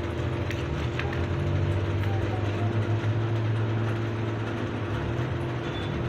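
Steady low mechanical hum, like a motor running, with a few faint clicks.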